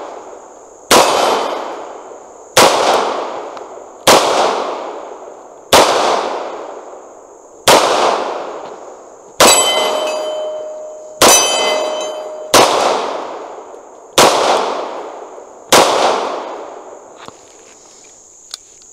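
CZ 75 SP-01 Competition 9mm pistol firing ten shots at a steady pace, about one every second and a half, each report trailing off in a short echo. Two of the middle shots are followed by a metallic ring lasting about a second.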